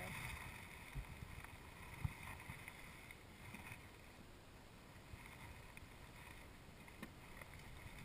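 Faint wind rumble on the microphone under a steady light hiss, with a few light wooden knocks as a beehive frame is lowered back into the hive box; the sharpest knock comes about two seconds in.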